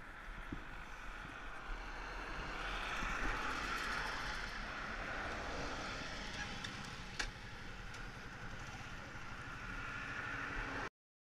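Steady road and engine noise of a moving car, with one sharp click about seven seconds in; the sound cuts off suddenly near the end.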